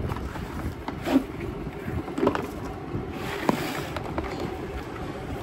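A hard plastic tool case being pulled from its cardboard box and handled: a few knocks and clicks roughly a second apart, with a brief rustle, over a steady low rumble.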